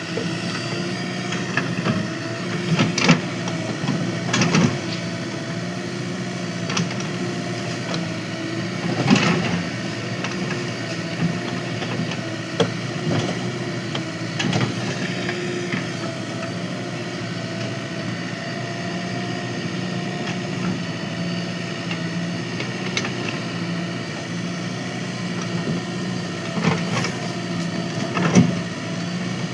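JCB 3DX backhoe loader's diesel engine running steadily while digging soil, with several short knocks and clanks scattered through, the sharpest about three and nine seconds in and near the end.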